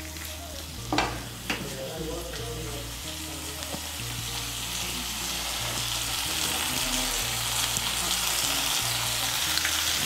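Potato wedges and fried spice paste sizzling in hot oil in a nonstick pan as they are stirred with a spatula. The masala has been cooked until the oil separates, so the potatoes are now frying in it. The sizzle grows slowly louder, with a couple of sharp clicks about a second in.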